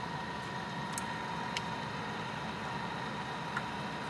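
Csepel RF 20 radial drilling machine running, its spindle drive and gearbox giving a steady hum with a steady whine. A few light clicks come through it.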